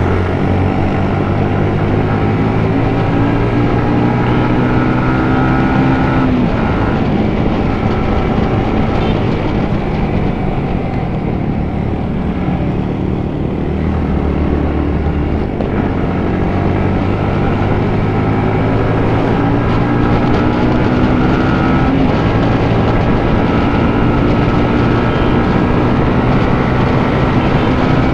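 Yamaha MT15's 155 cc single-cylinder engine running under way. The revs rise and then drop sharply about six seconds in, as at a gear change. They sit lower for a few seconds in the middle, then climb steadily toward the end.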